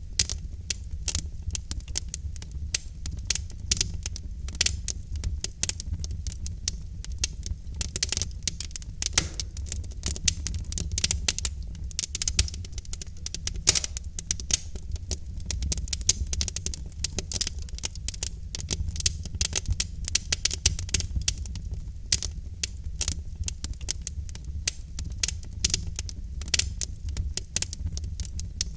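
Wood fire burning in a fireplace, with dense, irregular crackling and popping of the logs over a steady low rumble of the flames.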